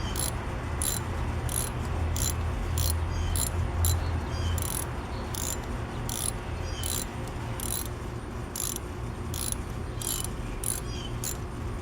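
3/8-inch-drive ratchet clicking, about two clicks a second, as a new spark plug is tightened down with a spark plug socket on an extension, over a steady low hum.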